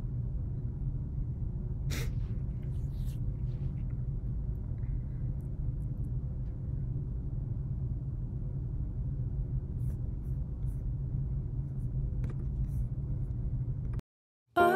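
Steady low room rumble and hum, with a faint click about two seconds in; it cuts off suddenly near the end.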